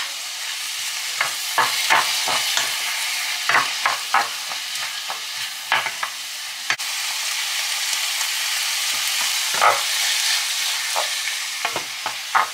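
Chopped onion and chanterelle mushrooms sizzling in a hot non-stick frying pan, with a steady hiss, while a wooden spatula stirs them in short irregular scraping strokes against the pan.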